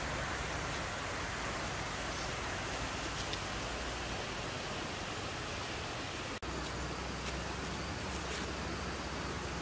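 Steady rushing outdoor ambient noise, with a momentary dropout about six and a half seconds in.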